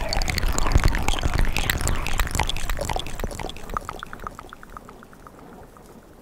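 Close-miked wet mouth sounds: quick tongue and lip clicks and smacks, crackly and wet. They thin out after about three seconds into a few faint ticks.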